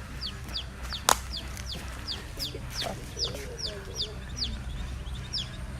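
Baby chick peeping: a steady string of short, high peeps, each falling in pitch, about three a second. A single sharp click comes about a second in.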